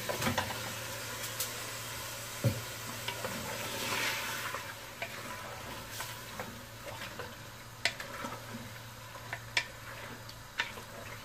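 Freshly added raw mutton sizzling in hot oil and onion-tomato masala in an aluminium pressure cooker as a ladle stirs it, with several sharp clinks of the ladle against the pot.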